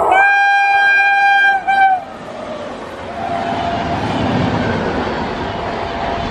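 Indian Railways WAP-7 electric locomotive's horn: one long blast and then a short second one. After it, the steady rolling rumble of a passenger train's wheels on the rails as the coaches run past.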